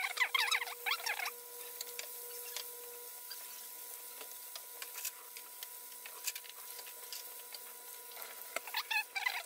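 Chicken wings deep-frying in boiling oil: a dense sizzling crackle for about the first second, then a quieter steady sizzle with scattered small pops, the crackle picking up again near the end.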